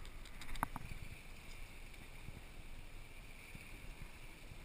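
Steady rumble and hiss of a sportfishing boat's engines and the water along the hull as the boat holds position during a marlin fight, with a few light clicks a little over half a second in.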